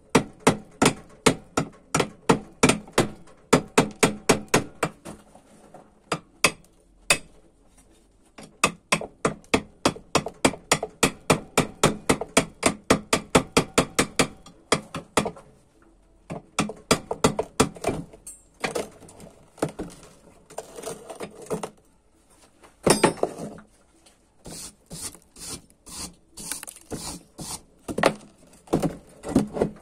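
Welder's chipping hammer rapping a steel weld bead at about three blows a second, knocking the slag off. About halfway through the blows grow irregular and give way to rough scraping strokes, a wire brush scrubbing the weld clean.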